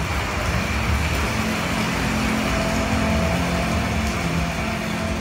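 A TV demo reel's soundtrack over loudspeakers: a steady, dense, noisy rumble with a few faint held tones.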